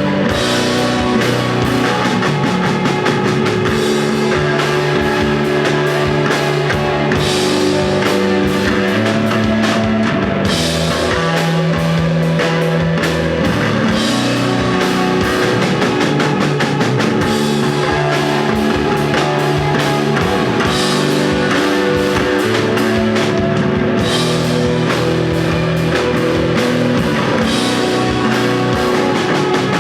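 Desert rock band playing an instrumental piece live: electric guitar, bass and drum kit together at a steady loud level. Held bass notes change every second or two under continual drum hits and cymbal wash.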